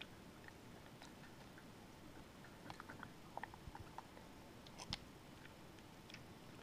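A java macaque eating soft food, with faint, scattered wet chewing and lip-smacking clicks and one sharper click about five seconds in.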